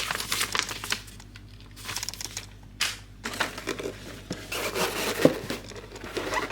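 Packaging crinkling and rustling as it is handled and pulled apart during unboxing, in bursts with short pauses and a sharp crackle about three seconds in.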